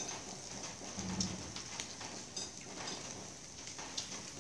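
Pork ribs sizzling on a wire grill over a charcoal fire, a steady hiss with scattered small pops and crackles.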